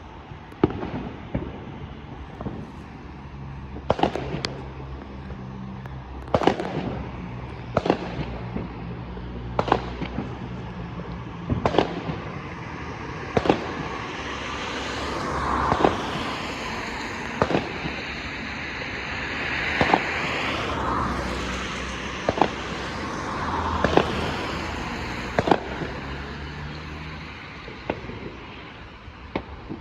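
Fireworks going off, one sharp bang about every two seconds, over a steady low hum. A broader rushing noise swells up and fades again through the middle.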